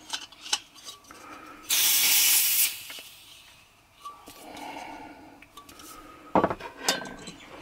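A burst of propane hissing out for about a second as a brass valve is threaded onto the top of a refilled screw-thread camping gas canister. A few light metallic clicks follow near the end.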